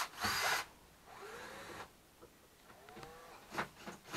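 Saw cutting through the wooden bed frame: a couple of short back-and-forth strokes at the start, a pause with a few faint squeaks, then more strokes near the end.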